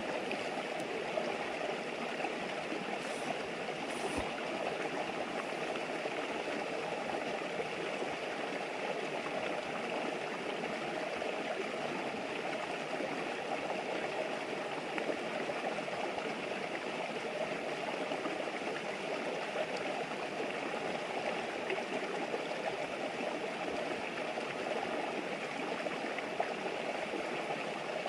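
A shallow river's murmur: water running steadily over stones, with a couple of faint ticks about three and four seconds in.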